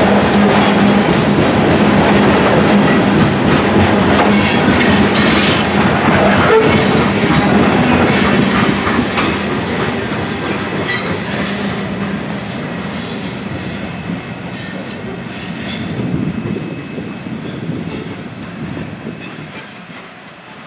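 Covered hopper cars of a grain train rolling past, with wheels clacking over the rail joints and brief wheel squeals. The sound is loud at first and fades away over the second half as the last cars go by.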